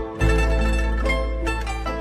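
Background music: a quick plucked-string melody over a deep, held bass.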